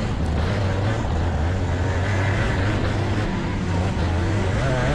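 Racing kart engine running while the kart is driven through a corner on a dirt track, its note rising near the end as it picks up speed.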